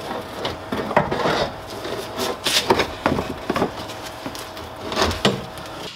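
Irregular clunks, knocks and rattles as a coil-spring strut assembly is handled and worked into place in a car's wheel well.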